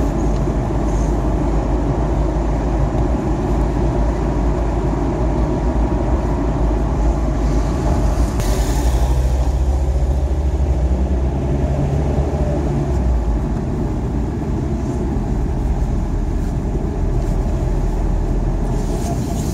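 Steady rumble of a car's engine and tyres heard from inside the cabin while driving slowly, with a short rise in hiss about eight seconds in.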